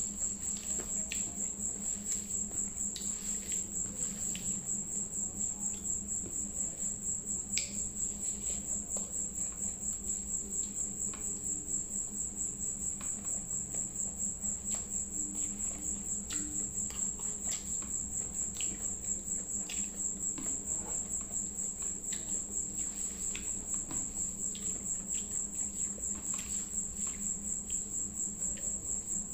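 A cricket chirping steadily in fast, even pulses, with faint scattered clicks and a low steady hum underneath.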